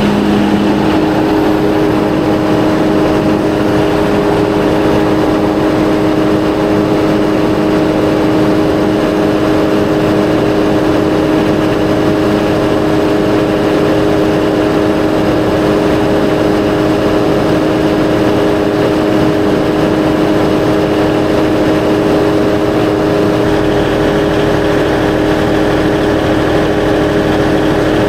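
A 1500 kVA Perkins diesel generator set running steadily, a loud hum with several held tones. The low rumble grows a little stronger about 23 seconds in.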